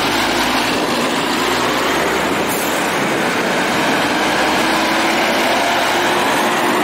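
Diesel semi-trucks pulling dump trailers driving past close by: engine drone and tyre hiss on wet pavement, one truck turning away as a second approaches and passes near the end.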